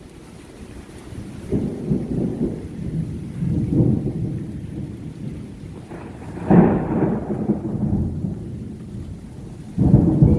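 Thunder rumbling over steady rain. A long roll builds in the first few seconds, a sharper, loud clap comes about six and a half seconds in, and another loud crack starts near the end.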